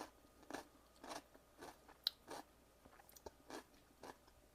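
A person chewing a mouthful of crunchy raw cucumber salad: faint soft crunches about every half second, with one sharp click about two seconds in.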